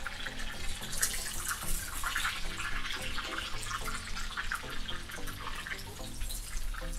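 Sunflower oil sizzling in a kazan as chunks of pork entrecote sear in it, with a steady hiss full of small crackles and spits of the oil.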